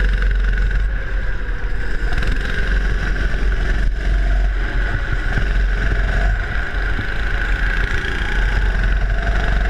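Go-kart engine running at speed, heard from on board the kart, its note holding fairly steady over a constant low rumble.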